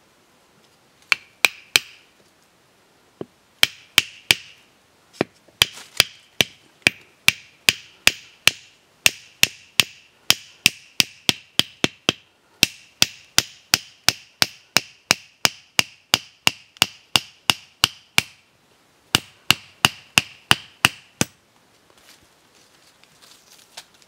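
Machete blade striking a thin bamboo stick: a long run of sharp, ringing knocks, two to three a second, in a few bursts with short pauses. The knocking stops a few seconds before the end.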